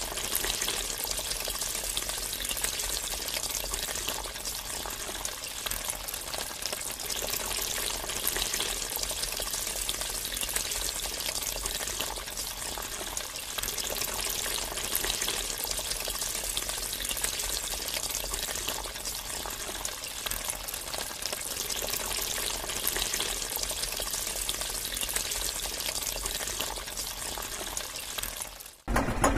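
Water spraying steadily from a small hose nozzle onto a muddy toy tractor and splashing onto the ground, fed by a small homemade electric water pump; it stops just before the end.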